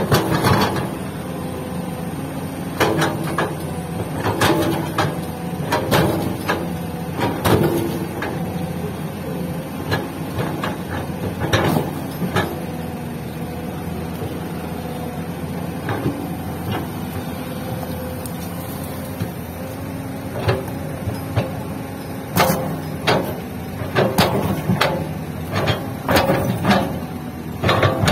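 Hyundai hydraulic excavator's diesel engine running steadily as the bucket digs and lifts soil, with repeated clunks and knocks from the bucket and its linkage, bunched more thickly near the end.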